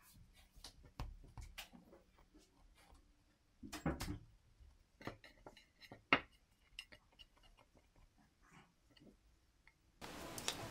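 Quiet handling sounds of dough being rolled into a log on a silicone baking mat and put into a black metal loaf pan: scattered soft taps and rubs, a short cluster of knocks about four seconds in, and a sharp knock a little after six seconds as the pan is set down. Soft music comes in near the end.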